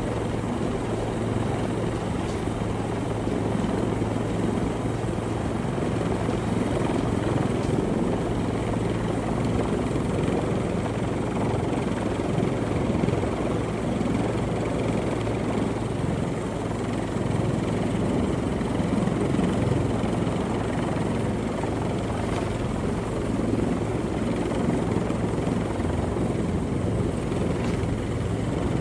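Rescue helicopter hovering: steady rotor and engine noise with a constant low hum underneath.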